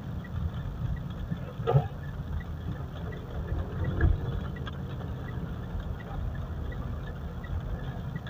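Mitsubishi Pajero driving, heard from inside the cabin: a steady low road-and-engine rumble with faint regular ticking, about three a second. There is no brake squeal while it is braked after its brake pads were replaced.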